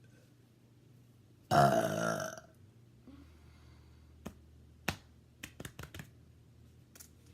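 A person forcing out one loud, long burp about a second and a half in, lasting about a second. A handful of short sharp clicks follow over the next few seconds.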